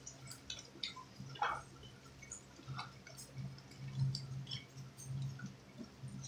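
Faint scattered clicks and light rustles of food and packaging being handled, over a low steady hum.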